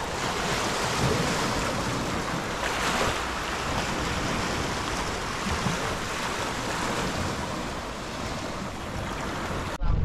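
Small sea waves washing and lapping over a shallow shingle shore: a steady wash of surf that swells a little about three seconds in. It cuts off abruptly just before the end, giving way to a low rumble of wind on the microphone.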